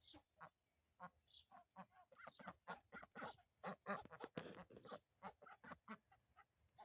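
Domestic ducks quacking, a faint run of many short calls in quick succession, busiest around the middle.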